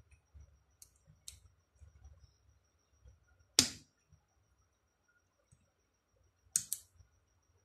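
Sharp metal clicks and snaps as the rectifier end of a Lexus LS 430 alternator is handled and pried by hand: two faint clicks in the first second and a half, a loud single snap in the middle, and a loud double click near the end.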